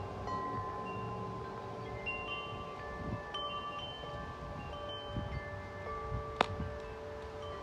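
Several sets of large tuned wind chimes, including Corinthian Bells, ringing in gusty wind: many overlapping notes strike and ring on, with wind rumbling on the microphone. A single sharp click stands out about six seconds in.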